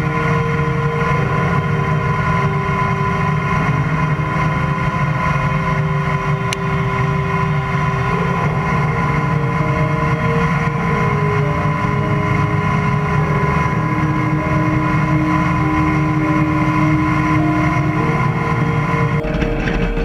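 Combine harvester cutting wheat: a loud, steady machine drone with several held whining tones that shift pitch now and then, and the sound changes abruptly just before the end.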